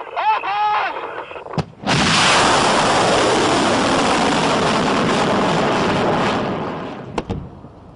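Ballistic missile launching: its rocket motor's roar starts abruptly about two seconds in, runs loud and steady as a dense rushing noise, and fades away about five seconds later as the missile climbs off.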